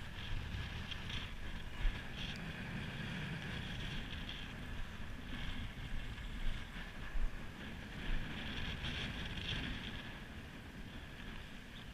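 Wind buffeting the microphone: a steady low rumble with a hiss over it, and a few brief thumps.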